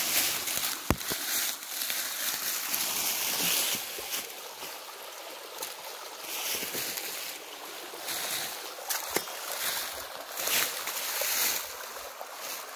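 A small stream running over rocks, a steady hiss that swells and fades, with a few footsteps crunching on dry ground.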